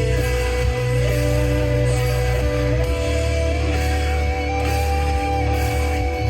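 Stoner doom metal recording: heavily distorted guitars and bass hold low, sustained chords, while a higher line climbs upward in a few small steps.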